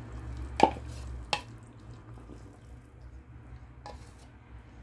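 Wooden spoon scraping blended okra out of a bowl into a pot of soup, giving two sharp knocks about a second in and a fainter one near the end, over a low steady hum.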